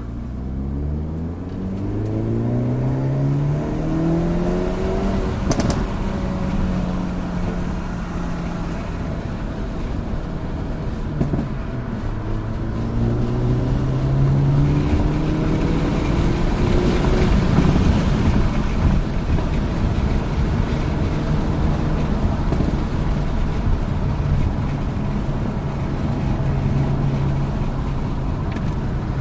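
Hyundai Elantra N's turbocharged 2.0-litre four-cylinder engine under hard acceleration, its pitch climbing steeply. There is a sharp break about five and a half seconds in, then the revs hold, drop around eleven seconds, and climb again.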